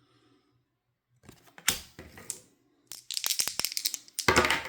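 Dice being shaken and rolled onto a tabletop: a few knocks, then a quick run of sharp clicks as they tumble and settle, and a louder clatter near the end.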